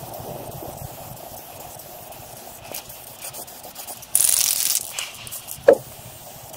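Aerosol rattle can of paint spraying: one short burst of hiss, under a second long, about four seconds in, followed about a second later by a sharp clink. Steady background noise underneath.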